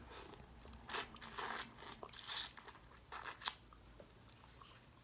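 A person chewing and biting into boiled seafood: irregular crunches and mouth clicks, a few to the second, with short gaps between.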